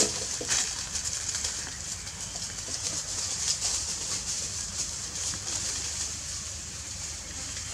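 Forest ambience: a steady high-pitched hiss with faint bird calls and scattered soft rustles, and one sharp knock at the very start.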